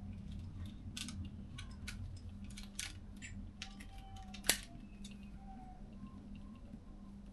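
Scattered small clicks and rustles of hands working plastic wire loom around scooter wiring, with one sharp click about four and a half seconds in, over a steady low hum.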